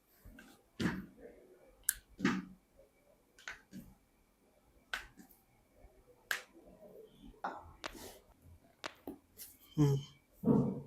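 Spinal joints cracking and popping under chiropractic manipulation: about a dozen sharp, sudden clicks at irregular intervals, some louder than others.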